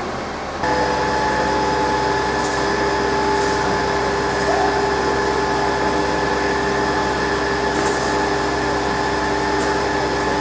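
Fire brigade machinery running with a steady drone that holds several fixed tones under a noisy hiss, starting abruptly just over half a second in.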